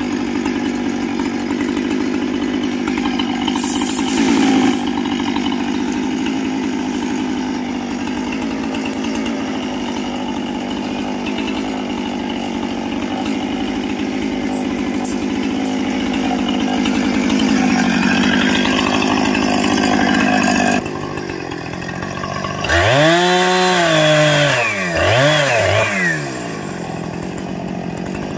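Two-stroke gas chainsaw running steadily while a felled tree is bucked into logs. About 21 seconds in it drops back, then is revved up and let down twice in quick succession.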